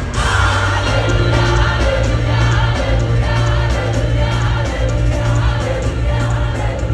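Gospel choir singing over a band with a steady bass line.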